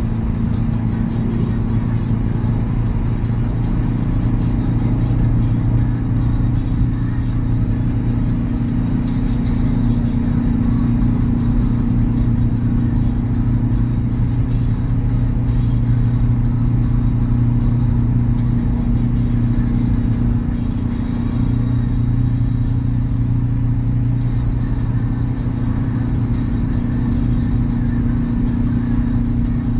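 Hyundai Veloster N's turbocharged 2.0-litre four-cylinder and its tyres droning steadily at highway cruising speed, heard inside the cabin: a constant low hum with a second tone above it over a haze of road noise.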